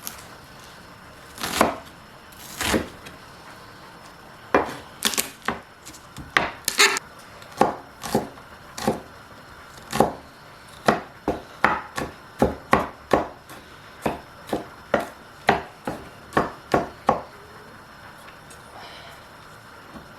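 Knife chopping food on a cutting board: uneven sharp knocks at about one to two a second, which stop a few seconds before the end.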